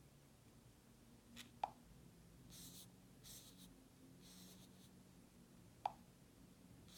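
Mostly near silence, with faint handling sounds: two short, sharp clicks about four seconds apart and soft brushing or rubbing sounds between them.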